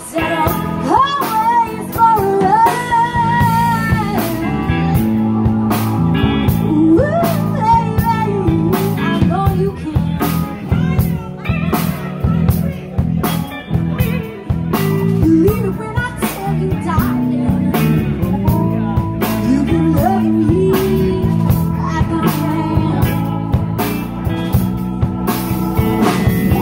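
Live blues-rock band playing: electric guitars, bass, drum kit and keyboard, with a lead line whose notes bend up and down in pitch.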